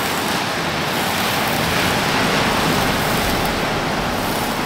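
Steady rushing of ocean surf breaking on the shore, mixed with the sizzle of a large rump steak searing over charcoal.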